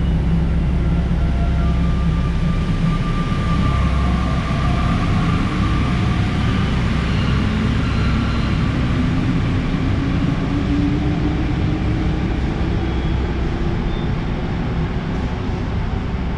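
Rubber-tyred Santiago Metro Line 1 train running with a steady low rumble, a motor whine rising slowly in pitch through the middle as it gathers speed.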